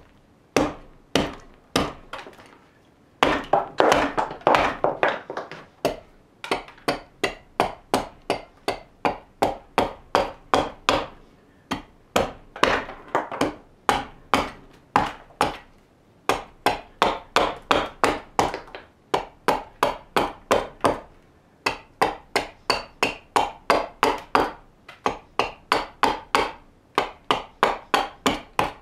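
Axe hewing a raw birch kuksa blank on a chopping block: short strokes of the blade biting into green wood, about two to three a second, with a few brief pauses.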